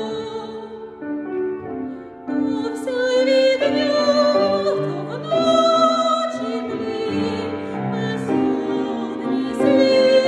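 Classical soprano singing a Ukrainian art song with vibrato, accompanied on grand piano. The singing is softer for the first two seconds, then swells louder.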